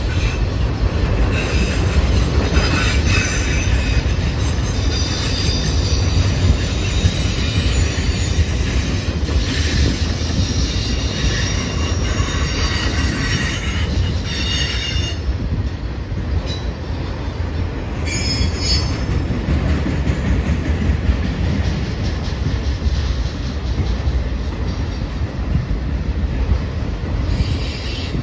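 Freight train of enclosed autorack cars rolling past: a steady heavy rumble of steel wheels on rail, with high-pitched wheel squeal coming and going several times.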